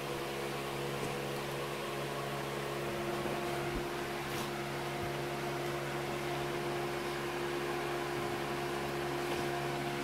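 A small electric motor humming steadily with a faint hiss, holding several fixed tones.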